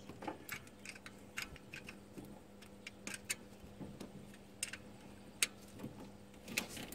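Irregular small metallic clicks and taps of a hand tool on the nut of the alternator's battery-positive terminal as it is tightened down.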